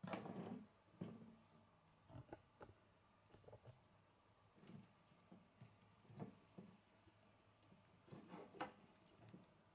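Faint clicks and light knocks of plastic K'nex pieces being handled and fitted together, with a louder clatter at the very start and again about eight seconds in.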